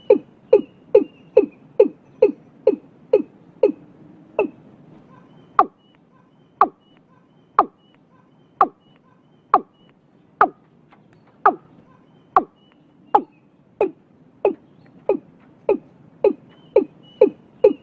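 Watercock calling: a long series of short, hollow notes, each dropping in pitch, about two a second at first, slowing to about one a second in the middle, then quickening again near the end.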